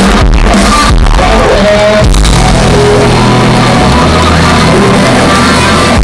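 Rock band playing live at high volume, heard from within the audience, with guitars and sustained bass notes that shift every couple of seconds.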